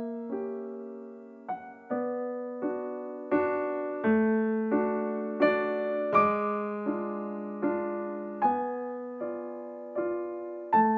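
Solo piano music: slow, gentle chords struck about once every three-quarters of a second, each ringing and fading before the next.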